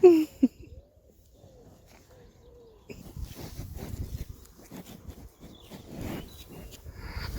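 Cows snuffling and licking close to the camera on its tripod: rough, uneven breathing and rubbing noise from about three seconds in. Before that, pigeons coo faintly, just after a brief loud cry with falling pitch at the very start.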